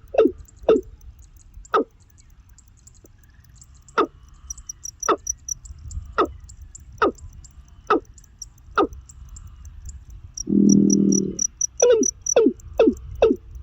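A bird calling with short, sharp cries that each drop steeply in pitch, about one a second, with a pause early on; a fast high-pitched twitter comes in twice. A low, steady humming tone lasts about a second near the end.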